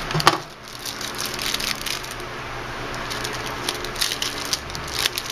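Clear plastic packaging bag crinkling and rustling as it is handled and opened by hand, with irregular sharp crackles.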